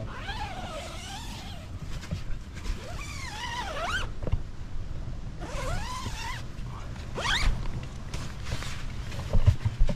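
Tent zip being pulled in several separate strokes, each a zipping rasp whose pitch bends with the speed of the pull; the last, about seven seconds in, is a quick rising one.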